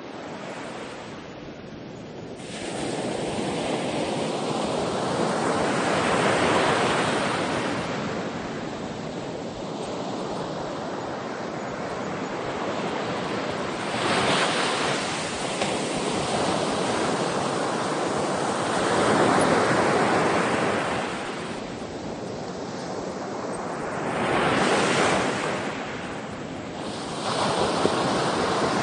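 Ocean waves breaking and washing up on a shore, the surf swelling and receding in slow surges every several seconds.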